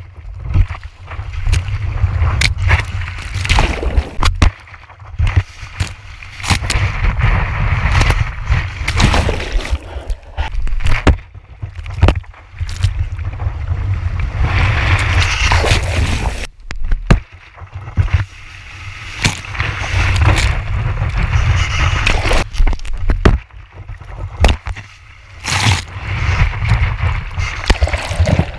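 Shore-break water sloshing and splashing over an action camera mounted on the nose of a riding skimboard, with a heavy low rumble of water and wind on the camera housing. The sound is choppy, swelling and falling unevenly with sudden cutouts and sharp splashes as the board skims and the camera dips under the water.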